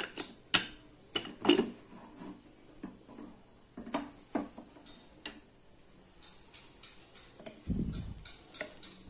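An aluminium pressure cooker being opened: a series of sharp metal clinks and knocks as the lid is worked free and lifted off. Near the end comes a duller scrape of a wooden spoon stirring the cooked tomato mixture in the pot.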